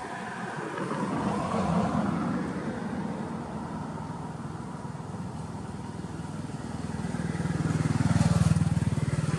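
Motorbikes passing on a road: engine noise swells about two seconds in, then again louder with a steady hum near the end.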